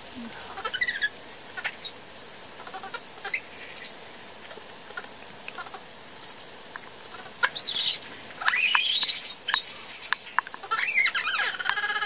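Infant vervet monkey calling in distress: scattered short chirps, then loud high-pitched squeals that sweep upward, loudest about eight to ten seconds in, and a wavering, trilling cry near the end.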